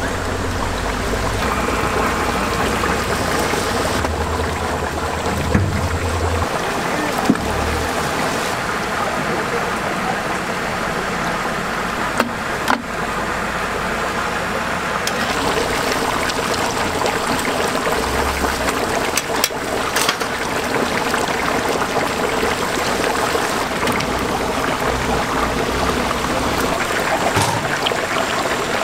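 Hot oil sizzling and bubbling steadily in a large cauldron as whole battered chickens deep-fry. A low hum sits under it for the first few seconds, and a few sharp clicks stand out.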